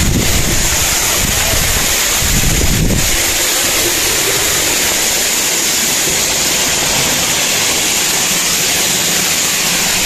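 Waterfall's water rushing in a loud, steady hiss. A low wind rumble on the microphone sits under it for the first three seconds, then fades.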